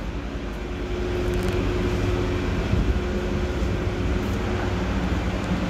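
Steady low mechanical rumble with a faint steady hum that fades out about five seconds in.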